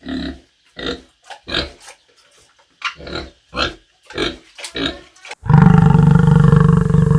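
An animal grunting in a steady series of short grunts, then giving one loud, long roaring call near the end.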